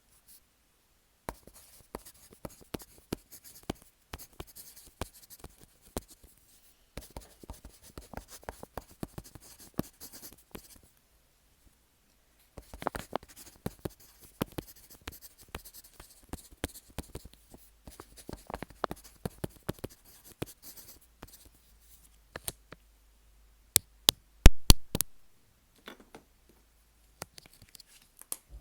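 Handwriting on paper close to a microphone fixed to the sheet: clusters of short scratchy strokes with brief pauses between characters. Near the end come a few sharp, loud clicks.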